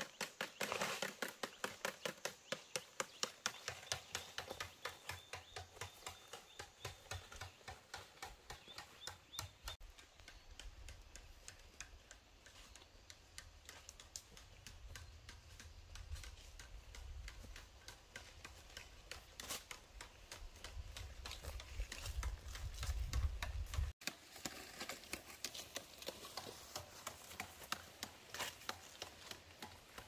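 Steady rapid tapping, about four taps a second, with a low rumble joining about a third of the way in.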